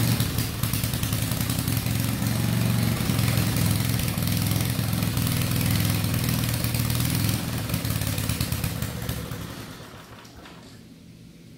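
Single-cylinder 8 hp Tecumseh engine on an old Craftsman tiller running steadily after a carburetor clean. About nine seconds in it runs down and dies. The owner is unsure whether it ran out of fuel.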